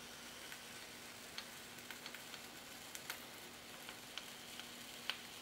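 Faint irregular crackling ticks as a block of polystyrene foam is pushed slowly through a homemade cutter's hot mild-steel wire, over a steady low hum.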